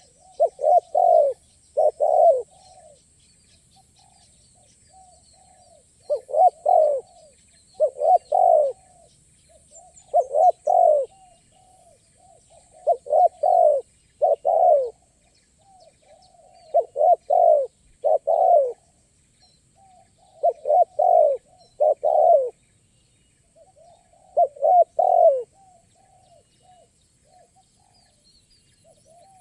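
Spotted doves cooing: repeated low phrases, each of two or three loud notes with softer lead-in notes, coming every two to four seconds.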